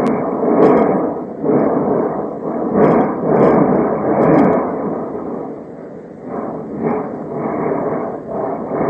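Volcán de Fuego erupting, heard through a low-quality phone recording: a dense, muffled rumbling roar that swells and fades, with a few faint clicks.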